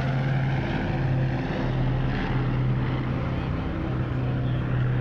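Lockheed Constellation's four radial piston engines droning steadily as the airliner flies low overhead with its gear down.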